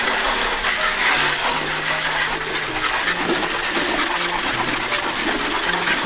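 Jet of water spraying and splashing onto a plastic air-conditioner blower fan, a steady hiss of spray that rinses off the foaming cleaning chemical after it has loosened the dirt.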